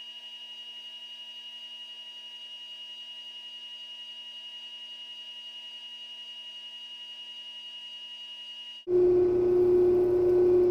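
King KC-1022ML (Grizzly G0602-type) 10 x 22 metal lathe running while a parting tool cuts off 3/4-inch steel stock, the cut going cleanly without chatter. A steady high whine of several tones with a faint pulsing, which about nine seconds in jumps to a much louder, lower steady hum with a hiss.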